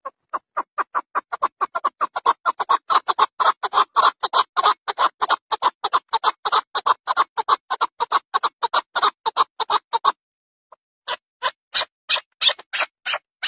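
Chukar-type partridge (Alectoris) calling: a long, fast run of sharp repeated notes, about four a second. It breaks off about ten seconds in and starts again a second later.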